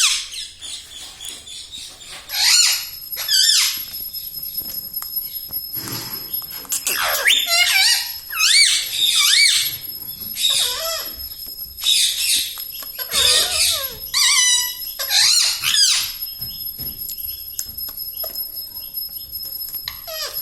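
Ring-necked parakeet calling and chattering in a string of high, wavering squawks and talk-like phrases, with short pauses between bursts. The calls thin out near the end.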